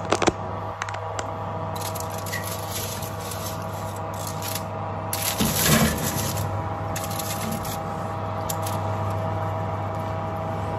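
A foil-lined baking tray scrapes and rattles as it is pushed along a wire oven rack. There are a few clicks at the start, scattered scrapes, and the loudest scrape about five and a half seconds in, over the steady hum of the running oven.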